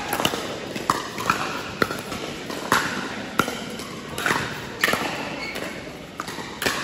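Pickleball rally: hard paddles striking a plastic ball in sharp pops, irregularly about one to two a second, each with a short echo in a large indoor hall.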